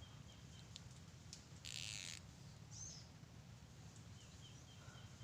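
Near-silent outdoor ambience: faint, short, repeated high chirps, a brief hissing rustle about two seconds in, and a single higher chirp just after.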